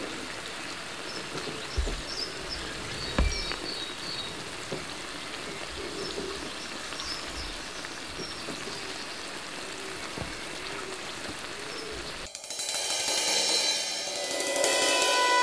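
Oil sizzling steadily in a frying pan as banana fritters fry, with two light knocks in the first few seconds and birds chirping. About twelve seconds in, it gives way to louder music with drums and cymbals.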